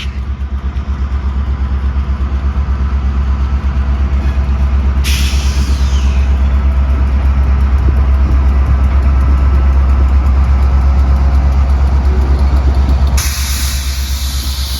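Diesel locomotive engine running close by: a heavy, low, evenly pulsing rumble that grows a little louder toward the middle. A burst of hiss comes about five seconds in, and more hiss near the end.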